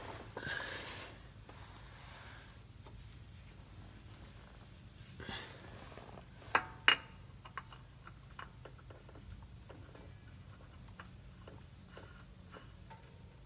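Hands fitting a new spin-on oil filter to the engine from underneath: faint scrapes and small clicks, with two sharp knocks about halfway through. Behind it, a steady high chirping at about two a second and a low hum.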